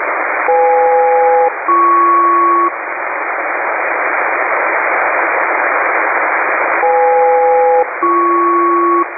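SELCAL calling tones over shortwave single-sideband radio hiss: two one-second two-note chords back to back, the second pair lower-and-higher than the first, sent about half a second in and repeated about six seconds later. It is an HF ground station alerting a specific aircraft's crew to answer the radio.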